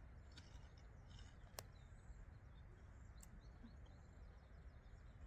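Near silence: faint outdoor background hum with a few faint bird chirps a little past the middle and a couple of soft clicks.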